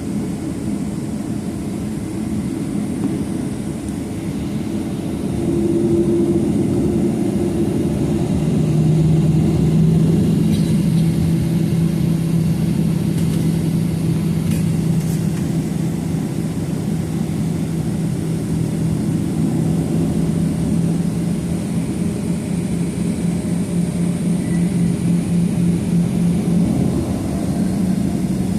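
The CFM56-7B jet engines of a Boeing 737-800, heard from inside the cabin as a steady low hum. The hum grows louder about five seconds in, and a steady low tone comes in about nine seconds in.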